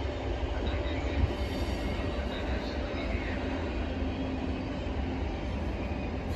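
Train running on rails: a steady, even rumble of wheels and running gear, with faint high whining tones over it.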